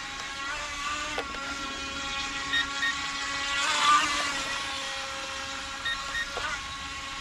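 DEERC H120 RC racing boat's small electric motor whining as it runs across the water, its pitch shifting with the throttle and climbing to its loudest about four seconds in.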